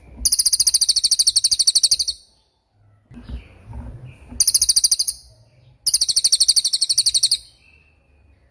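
Cililin songbird singing three high, sharp, very rapid trills: a long one of about two seconds, a short one in the middle, and another of about a second and a half near the end.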